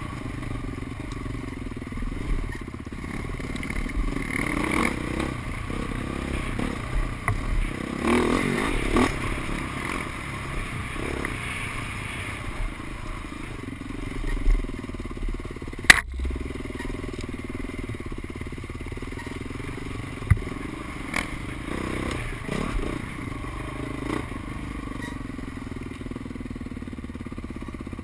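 Dirt bike engine running on a rocky trail, revs rising and falling, with rattling and scraping from the rough ground. A single sharp knock about sixteen seconds in.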